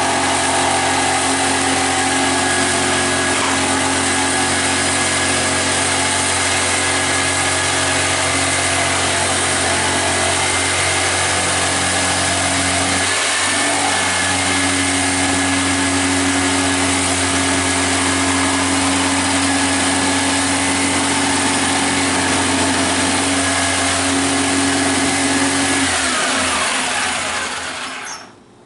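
Electric power tool motor running steadily at full speed, with a brief dip about halfway through. Near the end it is switched off and winds down, its pitch falling.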